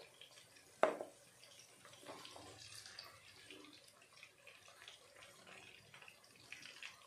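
Eggplant pieces frying in oil in a kadhai, with a soft crackling sizzle as they are stirred with a slotted spoon. The spoon knocks once against the pan about a second in.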